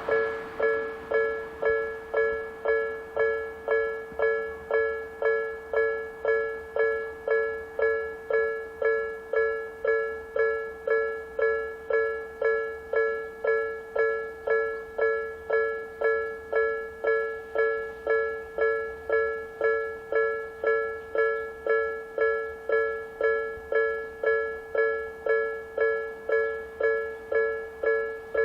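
Japanese railway level-crossing warning alarm: an electronic bell tone struck over and over at about one and a half strikes a second, each strike ringing and fading before the next.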